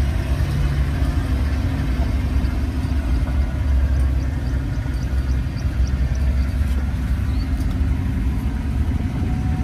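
Safari game-drive vehicle's engine running steadily as it drives, a loud low rumble with noise from the moving vehicle over it.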